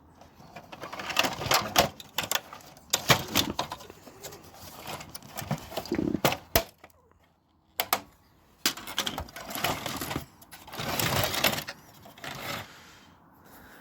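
Plastic and metal parts of a Samsung Xpress M2022 laser printer clattering, cracking and scraping as it is pulled apart, with irregular sharp knocks and bursts of rattling and a short pause about halfway through.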